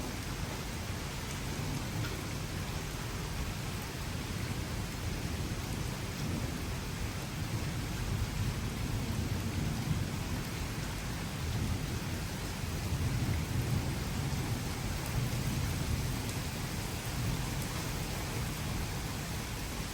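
Steady rain falling with low rolling thunder rumbling beneath it, the rumble swelling about halfway through and again a few seconds later.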